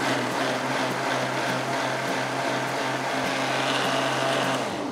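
Mixer grinder motor running steadily at speed with a constant hum, grinding cooked broccoli, potato and onion into a smooth soup, the liquid churning and splashing inside the steel jar.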